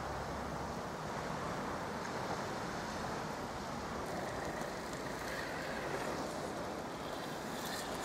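Steady rushing wash of wind and waves: an even outdoor background with no distinct knocks or calls.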